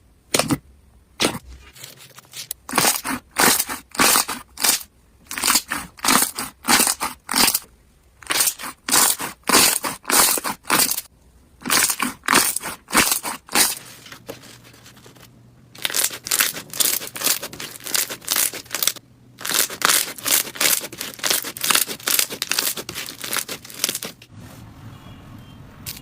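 Slime being pressed and squeezed by hand, making a quick, uneven run of sharp squishes and pops, two or three a second, with short pauses between handfuls.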